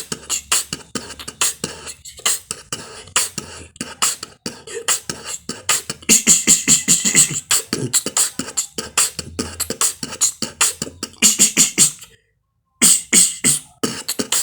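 Beatboxing: a fast run of mouth-made percussion, sharp clicks and kick-like hits with hissing hi-hat sounds, busiest about halfway through. It breaks off briefly near the end, then a few more beats follow.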